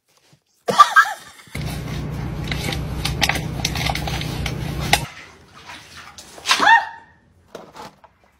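Steady low rumble inside a car for about three and a half seconds, with a few clicks over it, cutting off abruptly. A short, high cry sounds near the end.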